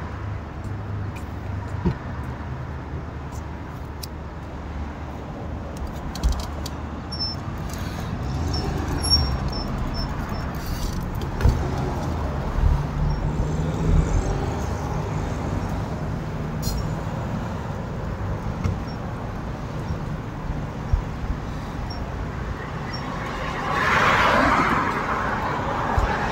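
Street traffic: a steady low rumble of vehicles, with a car driving past close by near the end, and a few short clicks and knocks.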